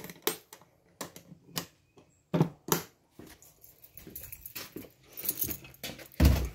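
Scattered light clicks and knocks as tools and hard objects are moved about on garage shelves, with a heavy thump a little after six seconds.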